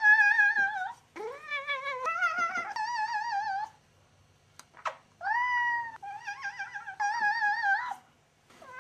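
A domestic cat yowling in a series of long calls whose pitch wavers up and down, 'cat yodeling', as it protests at being handled in an annoying way. The calls pause for about a second and a half in the middle, then resume.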